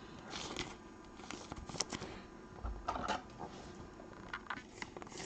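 Trading cards and their packaging being handled: faint, scattered rustles and light clicks.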